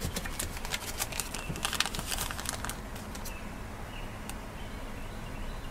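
Light crinkling and quick clicks from handling a small plastic bead packet, densest over the first three seconds and then thinning to a few scattered ticks.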